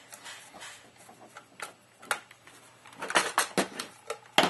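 Hard knocks and clinks of an airsoft AK rifle and a screwdriver being handled and the rifle turned over on a table: a few light clicks, a cluster of louder clattering knocks about three seconds in, and one sharp knock just before the end.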